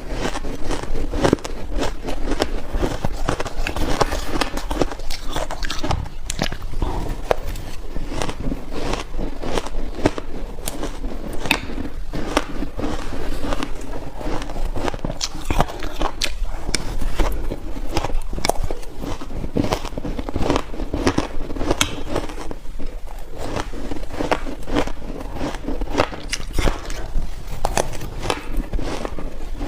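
Close-up biting and crunching of soft, powdery freezer-frost ice, a dense run of sharp crackles with each bite.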